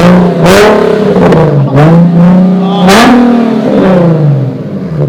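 Infiniti G37's V6 engine revved hard several times in quick succession, its pitch climbing and dropping back with each throttle blip, loud exhaust tone.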